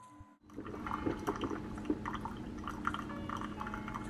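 Ninja coffee maker brewing: hot coffee pouring and dripping into a ceramic mug, starting about half a second in, over a steady low hum.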